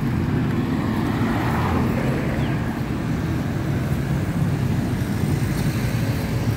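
Road traffic passing close by on a multi-lane road, cars and motorcycles, making a steady rumble that swells briefly as a vehicle goes past about a second in.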